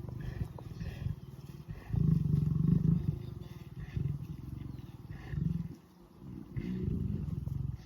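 Lion growling in long, low rumbling bouts over a wildebeest kill, loudest about two seconds in: a dominance warning to keep other lions off the carcass.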